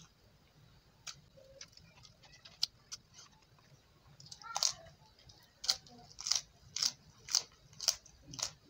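Close-up mouth sounds of eating crisp raw winged bean: a few faint clicks at first, then sharp crunchy chewing strokes about twice a second through the second half.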